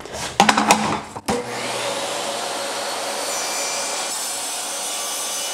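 Table saw switched on about a second and a half in, after a few knocks of the workpiece being handled. Its motor then runs steadily with a high whine while its tilted blade makes a bevelled test cut in a piece of wooden trim.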